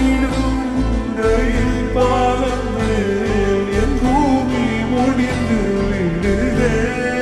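Tamil film song slowed down with heavy reverb: a gliding melody line over a steady deep bass.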